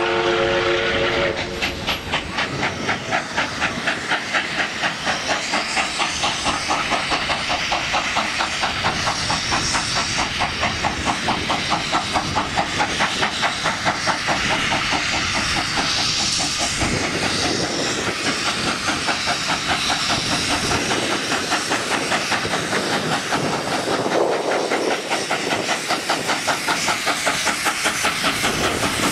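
NSW 59 class steam locomotive 5917 working hard up a grade: a steady run of rapid, regular exhaust chuffs with hissing steam. At the start its multi-tone chime whistle sounds briefly.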